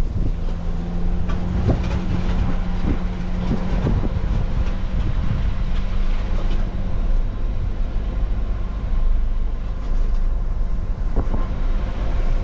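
Pontiac Vibe driving over a rough dirt trail: a steady engine hum and tyre noise, with scattered knocks and rattles as the car goes over bumps, several in the first few seconds and another near the end.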